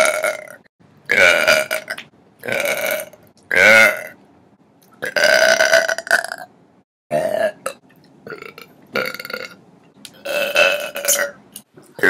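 A string of loud burps from young women, about eight in a row, each one short, with brief pauses between them.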